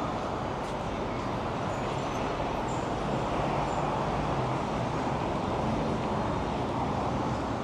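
Busy city street ambience: a steady wash of road traffic with a low engine hum.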